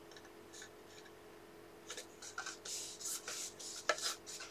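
Small cardstock box handled and rubbed between the fingers: soft rustling and scraping of paper starting about two seconds in, with a light tap near the end.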